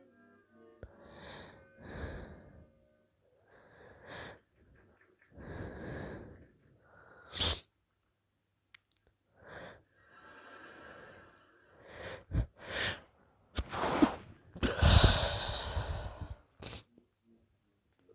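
A woman's stifled sneezing fit: a run of breathy, gasping build-up breaths with sniffling, a short sharp sneeze about halfway through, then a quick cluster of sneezes near the end, the loudest of all just before the end.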